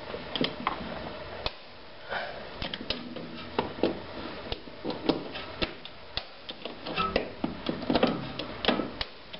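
Wrench ratchet clicking in short, irregular runs of strokes while a torque wrench is worked on the top strut-mount nuts, which are being tightened to 25 Nm.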